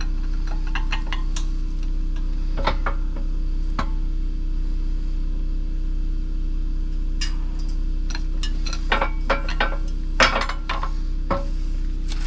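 Scattered metallic clinks and knocks as the aluminium upper control arm is handled and lifted off the steel plates of a hydraulic press, busiest in the second half, over a steady low hum.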